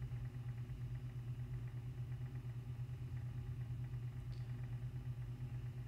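A steady low hum with a slight flutter in its loudness, and no other event standing out.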